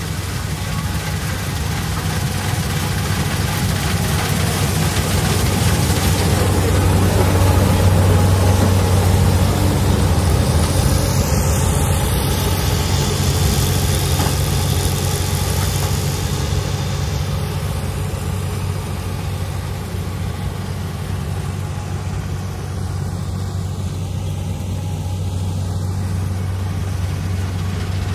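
New Holland combine harvester's diesel engine and threshing machinery running steadily while harvesting soybean, a low hum with a hiss over it. It grows louder as the machine passes close through the middle, then eases as it moves away.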